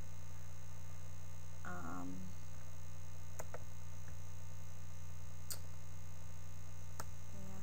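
Steady low mains hum, with a few faint, sharp clicks scattered through the second half.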